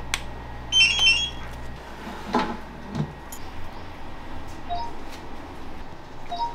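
Self-order touchscreen kiosk being switched on: a click of its power button, then a brief run of high electronic beeps about a second in, a couple of soft knocks, and later short two-note beeps as the touchscreen is tapped.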